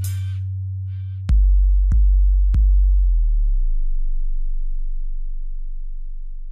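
The final notes of a bass-test music track: a held deep sub-bass note fades. Then three sharp-attack sub-bass hits come in quick succession, about a second in, each starting a lower tone, and the last is left to ring down slowly.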